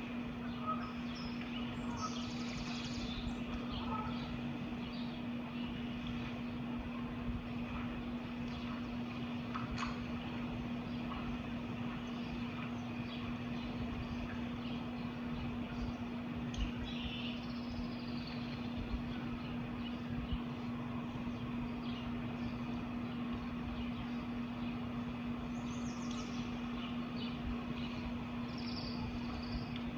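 Birds chirping sporadically, a few short high calls at a time, over a steady low rumble and a constant low hum.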